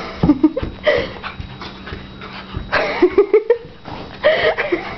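Jack Russell terrier giving short whines and grunts, with a quick run of several about three seconds in. Fabric rustles as the dog scrambles and rubs itself about in its post-bath frenzy.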